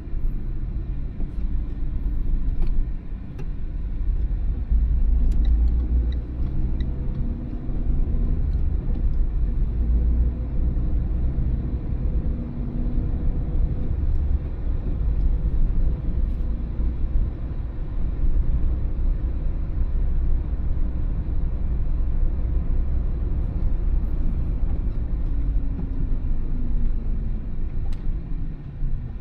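Car driving, heard from inside the cabin: a steady low rumble of engine and road noise, the engine note rising and falling as the car changes speed.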